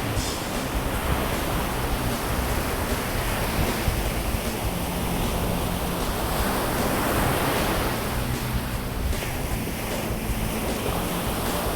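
Sea waves washing onto a beach in a steady rush that swells and eases over several seconds, with wind buffeting the microphone.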